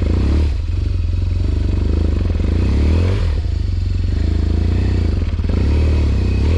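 BMW R1200GS Adventure's flat-twin engine running at low revs as the motorcycle rolls slowly over grass, the engine note dipping briefly a few times.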